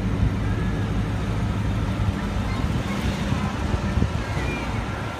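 Low, steady rumble of C4 Chevrolet Corvette V8 engines as the cars drive slowly past one after another.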